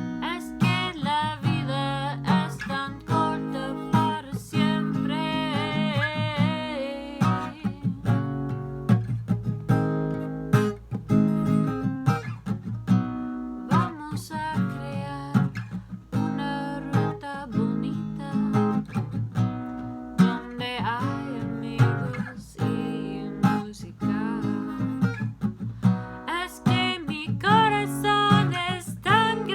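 Acoustic guitar strummed in a steady rhythm, accompanying a singer's voice that comes and goes in sung phrases.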